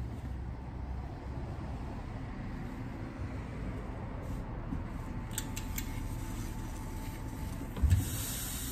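Steady low hum of a sewing workroom while tartan shirt fabric is handled on a worktable, with a few light clicks and a single thump near the end followed by a hiss.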